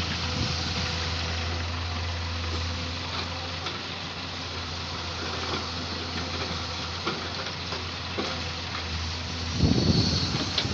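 Samsung excavator's diesel engine running steadily, with scattered light knocks and a louder low rumble near the end.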